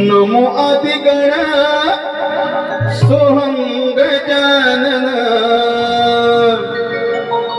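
Singing with instrumental accompaniment: a long, ornamented melody with gliding notes over steady held tones, and a single low thump about three seconds in.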